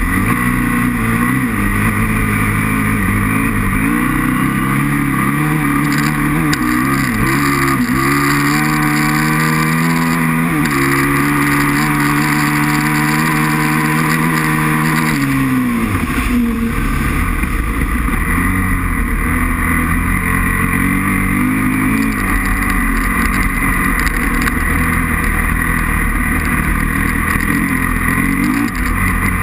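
Aprilia RXV 550 V-twin engine running hard under load, its revs climbing and holding steady for several seconds, then falling sharply about fifteen seconds in before picking up and varying again.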